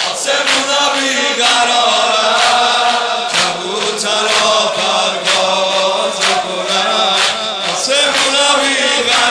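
Male voices chanting a Shia mourning lament (noheh), held and bending notes, over a steady beat about once a second from sineh zani chest-beating.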